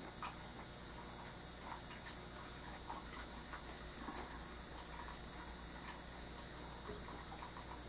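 An oil-paint brush dabbing and scrubbing on a painting panel: soft, irregular ticks and taps over a steady low hum.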